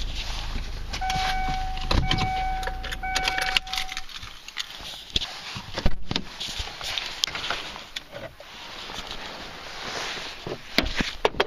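Vehicle's engine running and then going quiet, while a pitched warning chime sounds three times, about once a second. Then come several clicks and clunks of the car door and of someone climbing out.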